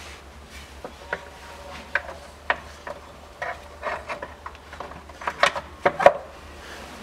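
Timing-belt cover being pressed into place over the timing belt by hand: irregular clicks, knocks and rubbing of the cover against the engine, the loudest knocks about five to six seconds in.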